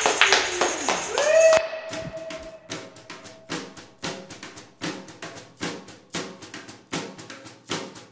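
Indie rock band recording: a full band passage cuts off about a second and a half in on a guitar note bending upward and ringing, then a steady rhythm of sharp percussive clicks, leading into the drums.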